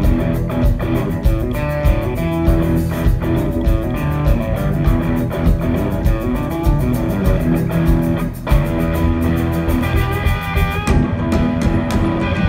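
Live blues band playing an instrumental passage: electric guitar lead over bass and a drum kit keeping a steady cymbal beat.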